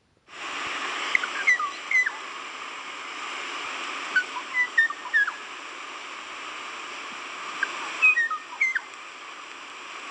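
Kauaʻi ʻōʻō singing: short, clear whistled notes that slide in pitch, in a run of a few seconds, a pause, then another run near the end, over a steady hiss.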